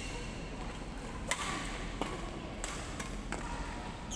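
Badminton rackets striking a shuttlecock in a rally: a series of sharp hits, spaced under a second apart, the loudest about a second in.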